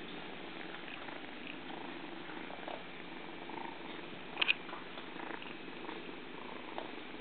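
Tabby kitten purring steadily, with two quick sharp clicks close together a little past the middle.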